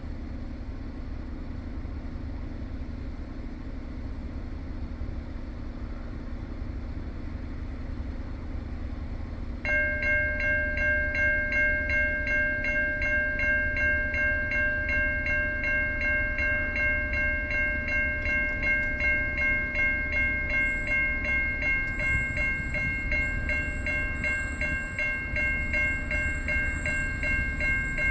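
Level crossing warning bells start up about ten seconds in, a rapid ding repeating two or three times a second, signalling an approaching train. Under them throughout is a steady low rumble from the approaching freight train.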